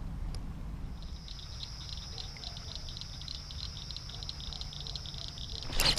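An evening insect chorus: a steady, high, fast-pulsing chirr that comes in about a second in. A short, sudden noisy burst follows near the end.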